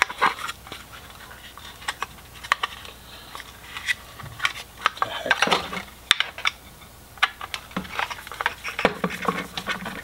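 Hands working a plastic fog light housing and its metal reflector, giving irregular small clicks, taps and rattles of plastic and metal parts knocking together.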